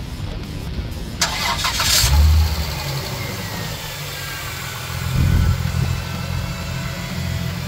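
2002 Chrysler Prowler's 3.5-litre 24-valve V6 being started: the starter cranks for about a second, the engine catches with a loud burst about two seconds in, then settles to a steady idle with a brief rise in revs about five seconds in.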